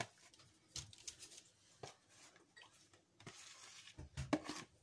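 Ground-meat mixture being scraped by hand out of a plastic bowl onto a parchment-lined baking tray: a few faint, light knocks and a soft rustle of the paper.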